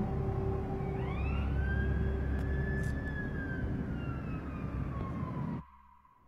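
Emergency-vehicle siren wailing in slow sweeps, with one long rise about a second in and a slow fall, over a low rumble. It cuts off suddenly about five and a half seconds in.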